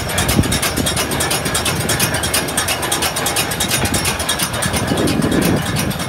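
New Holland BR780 round baler running, its mechanism turning with a fast, even clicking rattle.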